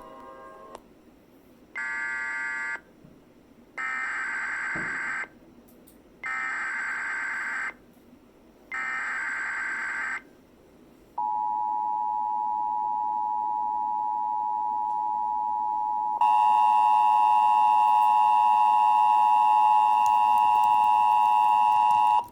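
Emergency Alert System (EAS) Amber Alert tones: four harsh, roughly one-second blasts of screeching digital header data about a second apart, then the steady two-tone EAS attention signal, which jumps louder and harsher about five seconds after it starts.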